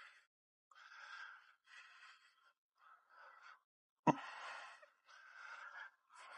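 A man breathing hard with exertion, a string of short breaths in and out, and a single sharp knock about four seconds in.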